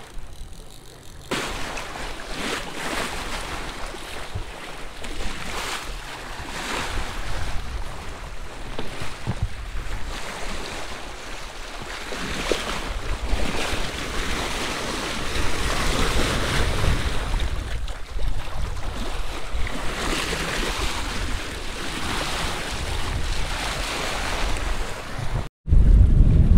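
Sea water rushing and splashing along a sailing yacht's hull as it sails, swelling and easing in surges, with wind buffeting the microphone. Near the end it cuts out briefly and a loud low wind rumble on the microphone follows.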